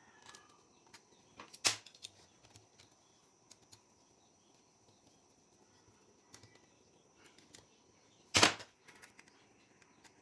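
Two sharp knocks, about seven seconds apart, with faint scattered clicks between them over a quiet background with a faint steady high tone.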